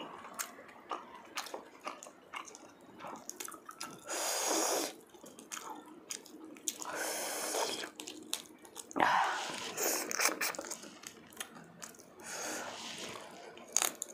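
Close-up wet eating sounds: a saucy buttered shrimp being peeled by hand, with sticky finger clicks, lip smacks and chewing, and a few longer hissing sounds.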